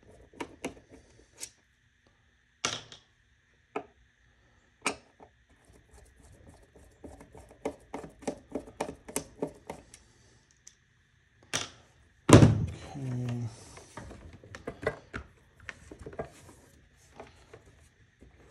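A screwdriver clicking and scraping as screws are backed out of a turntable's bottom panel, with quick runs of small taps. About twelve seconds in there is one louder knock that rings briefly.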